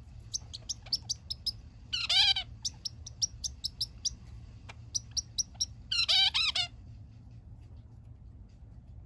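Male zebra finch singing: runs of short, high chirps, each run ending in a longer, lower, drawn-out note, about two seconds and six seconds in.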